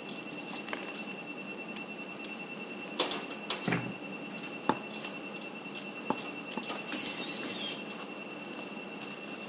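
Handling noises at a workbench: a few sharp clicks and knocks as plastic handpieces and card covers are handled, and a brief crinkle of wrapping about seven seconds in, over a steady high-pitched whine and low hum.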